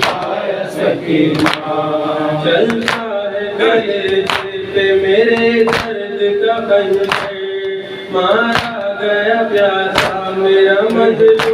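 Noha, a Shia lament, sung by a male reciter into a microphone, with a group of men chanting along. It is kept in time by chest-beating (matam): sharp hand-on-chest strikes about every second and a half.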